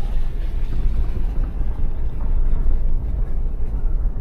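Lexus GX460 on the move: a steady, loud low rumble of road and engine noise.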